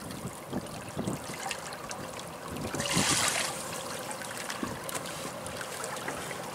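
Water running and splashing: a steady wash with scattered small clicks, and a louder rush of water about three seconds in.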